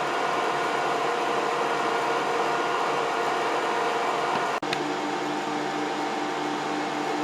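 Steady whir of an electric blower or fan motor with a constant hum. About halfway through it breaks off for an instant and resumes with a slightly different hum.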